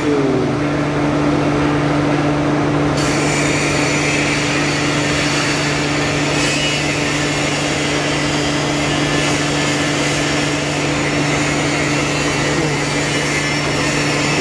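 Horizontal foam splitting machine running with a steady hum under a broad hiss; the hiss grows brighter about three seconds in.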